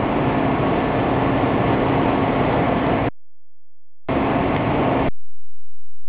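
Blanket washing machine line running: a steady mechanical noise of turning rollers and moving cloth, with a faint held hum in it. The noise cuts off abruptly about three seconds in, comes back for about a second, and then gives way to a steady low hum.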